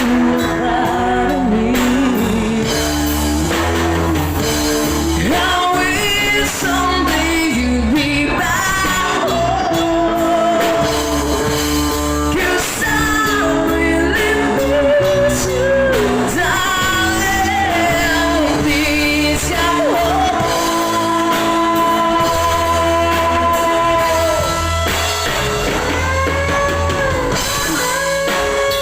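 A rock band playing a song live with a lead vocal singing the melody over bass, guitar and drums.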